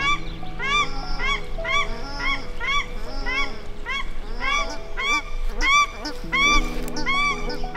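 Pair of paradise shelducks calling in flight: a loud, repeated honking, about two calls a second, each call rising and falling in pitch, over soft sustained background music.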